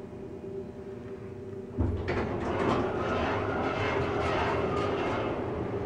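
Stainless-steel doors of a 1998 Dover hydraulic elevator sliding open with a steady rumbling rush, starting suddenly about two seconds in, after a faint steady hum.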